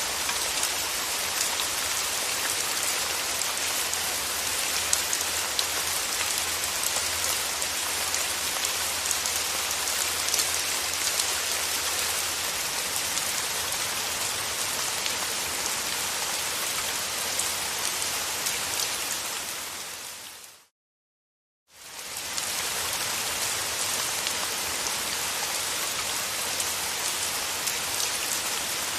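Steady rain: an even hiss with scattered individual drop ticks. About two-thirds of the way through it fades out to silence for about a second, then fades back in.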